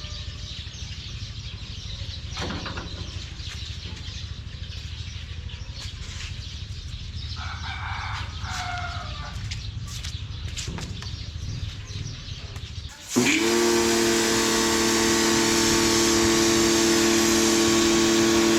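Kawasaki ACK-302 electric high-pressure washer switching on about thirteen seconds in: its motor hum rises briefly in pitch, then holds a steady whine under the loud hiss of the water jet. Before that, only low background noise with a few knocks and clicks.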